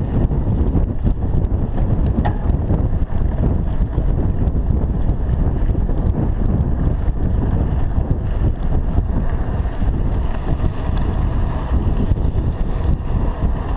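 Wind buffeting the microphone of a bike-mounted action camera, over the low rumble of a mountain bike rolling on a dirt trail.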